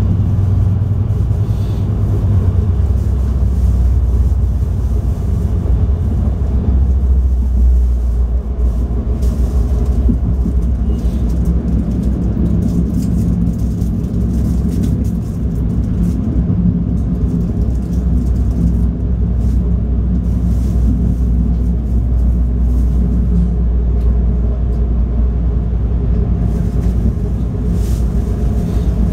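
Steady running noise inside a moving NJ Transit River Line diesel light rail car (Stadler GTW): a loud, low rumble of engine and wheels on rail.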